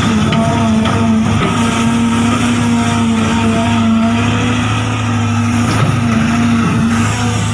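Radio-controlled model trucks and excavator running, a steady motor whine that dips briefly a few times and picks up again.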